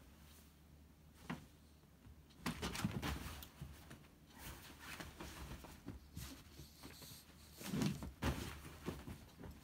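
A cat scrambling around a fabric pop-up play tent on a futon: irregular fabric rustling and soft bumps, louder around three seconds in and again near the end as the tent is knocked flat.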